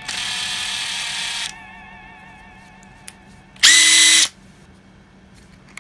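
Makita TP141D 18 V cordless 4-mode impact driver running free with no load, triggered twice: a run of about a second and a half, then a louder, shorter run near the end of the first four seconds whose whine rises as the motor spins up. The tool is on its top speed setting.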